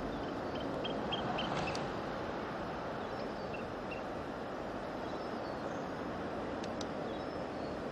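Steady, even rushing noise of a distant approaching diesel multiple unit made up of Class 143 Pacers and a Class 153, with no clear engine note. A few short, high bird chirps come in about half a second to two seconds in and again around three and a half seconds in.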